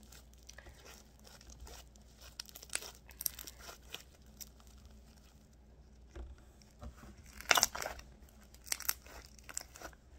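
Homemade white-glue slime mixed with shaving cream and conditioner being stretched and squeezed by hand, giving irregular sticky crackles and pops. Two louder clusters of pops come about two-thirds of the way in.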